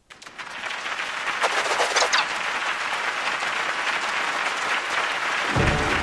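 Audience applauding, a steady clapping that builds up over the first second after a short silence.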